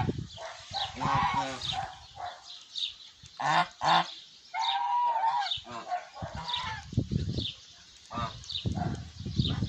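Linda geese honking repeatedly, with one longer honk about five seconds in.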